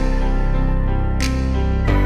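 Background music: soft instrumental with sustained chords and a light percussive beat about every one and a half seconds.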